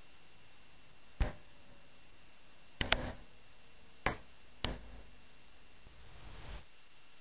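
A few sharp, short clicks or knocks at irregular intervals, one of them a quick double, followed near the end by a brief rustle.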